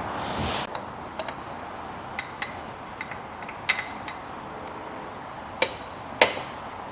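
Hand tools working on an engine's accessory drive belt: scattered metallic clicks and clinks, with two louder knocks near the end.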